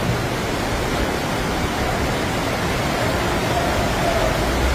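Steady rushing of floodwater and heavy rain, a dense even roar with no breaks.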